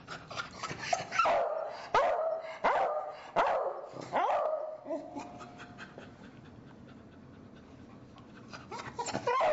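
Beagles barking, each bark dropping in pitch: about five loud barks in the first four and a half seconds, a quieter stretch, then more barks starting near the end.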